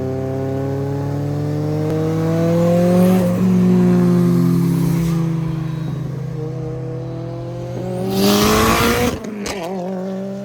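Car engine revving and accelerating: its pitch climbs for about three seconds, drops back, then climbs again. A loud rushing burst comes about eight seconds in.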